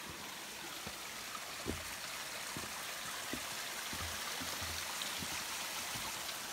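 Small mountain stream running over mossy rocks, a steady rush of water, with a few soft low thumps scattered through it.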